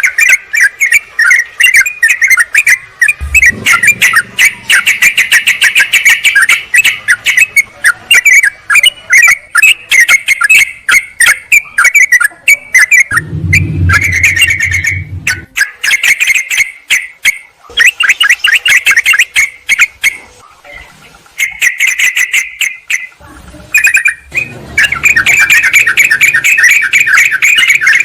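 Yellow-vented bulbuls (trucukan) calling: loud, rapid, agitated chattering notes with brief pauses, the noisy calling used to lure wild bulbuls. A low rumble sits underneath twice, around the middle and near the end.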